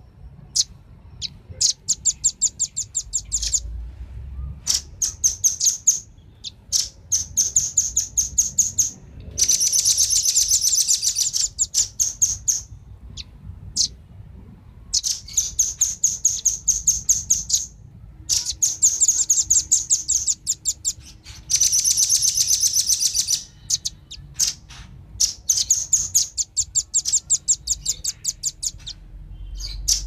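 Velvet-fronted nuthatch calls: rapid runs of sharp, high chipping notes, repeated in bursts of one to three seconds with short gaps. Played as a lure call for wild rambatan.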